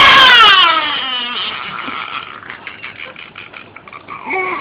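A man's high, wailing vocal cry that wavers and slides down in pitch over about a second and a half, done as a funny sound. Softer voice sounds follow, and a short rising cry comes near the end.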